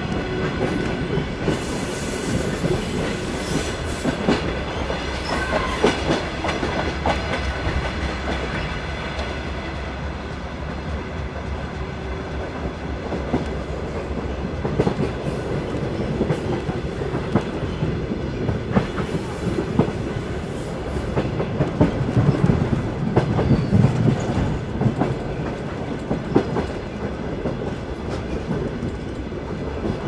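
Train running on rails: a steady rumble with irregular clickety-clack of the wheels over rail joints, the rumble swelling briefly about three quarters of the way in.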